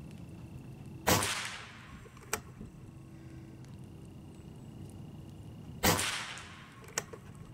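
Evanix Hunting Master AR22 regulated revolver-style PCP air rifle fired twice, about five seconds apart. Each shot is a loud crack with a short trailing echo, followed about a second later by a sharp click.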